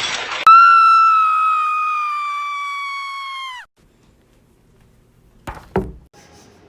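A loud, steady high-pitched tone that starts abruptly, sinks slightly in pitch and cuts off suddenly after about three seconds, followed by near quiet and two brief knocks near the end.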